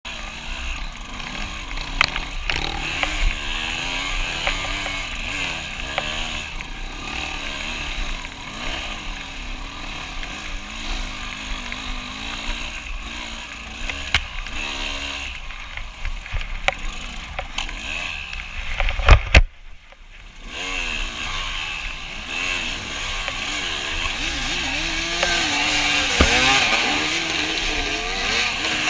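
Off-road dirt bike engine revving up and down over and over as it rides a rough trail, with scattered knocks throughout. About nineteen seconds in there are heavy thumps, then about a second of near quiet before the engine sound returns.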